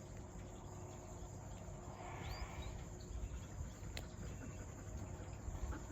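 Quiet background noise: a low steady rumble and hiss, with a brief faint chirp about two seconds in and a single click about four seconds in.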